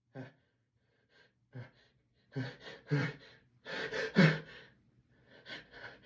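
A person's gasping, hitching breaths building up to a sneeze: a few short, faint gasps at first, then louder ones from about two seconds in, strongest about four seconds in.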